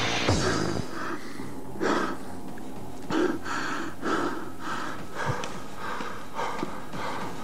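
Hardcore techno DJ mix in a beatless break: irregular bursts of noise, roughly one a second, with no steady kick drum.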